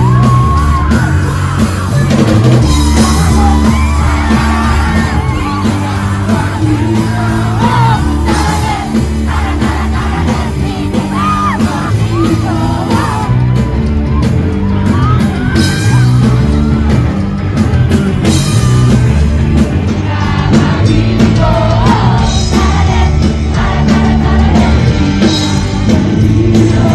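Loud music with a sung vocal and a steady beat, with yells and shouts over it.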